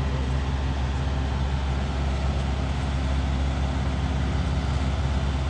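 Steady low hum of an engine running, as of a vehicle idling, with no change in pitch or level.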